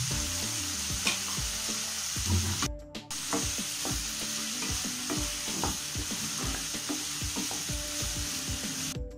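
Chopped vegetables sizzling as they sauté in hot oil in a nonstick pan, stirred with a wooden spatula that scrapes and taps against the pan over and over. The sound drops out briefly about three seconds in.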